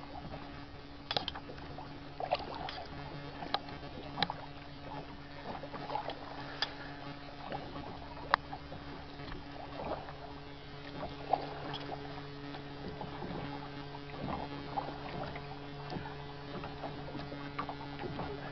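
Kayak being paddled: water splashing and dripping off the paddle, with irregular small clicks and knocks, over a steady low hum.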